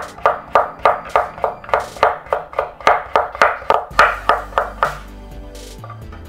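Chef's knife slicing a carrot thinly on a bamboo cutting board: an even rhythm of about three to four strikes a second against the board, stopping about five seconds in. Background music plays underneath.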